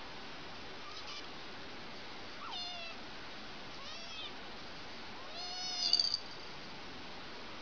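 Kittens mewing: three short mews, the third longer and the loudest.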